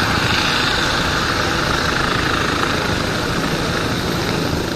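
Helicopter turbines and rotors running steadily and loudly while one helicopter hovers low and descends to land.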